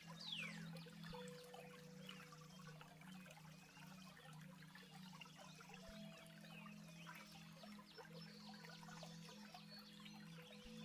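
Faint flowing water stream with small birds chirping throughout, including two quick falling whistles right at the start. Soft held low music notes sit beneath, changing about a second in and again about six seconds in.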